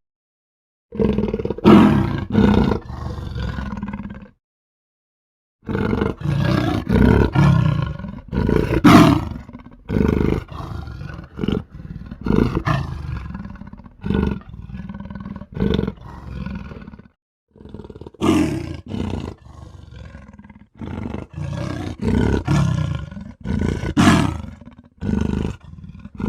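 A montage of creature sound effects for a fictional big cat: loud roars and growls, one after another, in short bursts, with abrupt cuts to dead silence between some of them.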